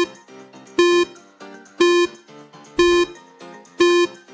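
Workout timer's countdown beeps over soft background music: five short, identical beeps, one per second, counting down the last five seconds of a 20-second tabata exercise interval.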